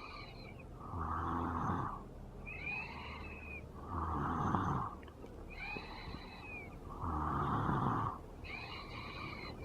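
Rhythmic snoring: a rasping, buzzing breath alternates with a higher hissing breath, the cycle repeating about every three seconds.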